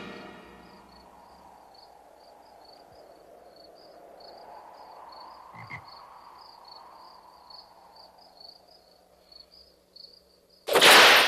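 Crickets chirping, a steady run of short high chirps about three or four a second, over a faint low hum. Near the end a sudden loud burst of noise cuts in.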